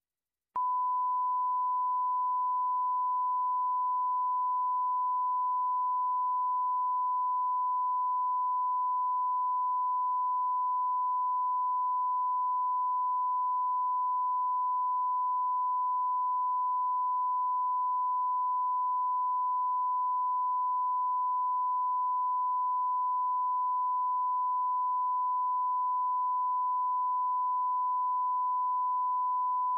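1 kHz line-up tone, the reference tone recorded with colour bars at the head of a tape for setting audio levels: one pure, unchanging pitch that starts about half a second in and holds steady.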